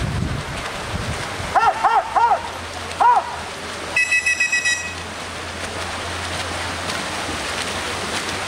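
Swimmers splashing through a freestyle race with spectators along the pool, a steady wash of noise. About two seconds in come four quick high-pitched shouts of encouragement, and about four seconds in a short shrill trill of rapid pulses.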